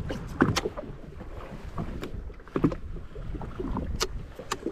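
Water lapping against the hull of a drifting jet ski with a low wind rumble, broken by a few sharp knocks and slaps, the loudest about half a second in.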